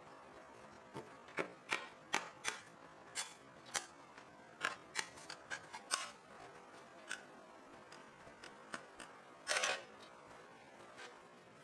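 Irregular sharp clicks and snaps from handling hot, sticky cooked candy syrup on a cooling slab as it is poured, pressed and folded by gloved hands, with a longer rustling burst a little past halfway.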